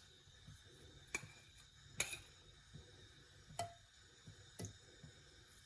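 A few sharp ticks, about four spread out, from a non-stick pan of cooking oil heating on the stove, over a faint steady hiss.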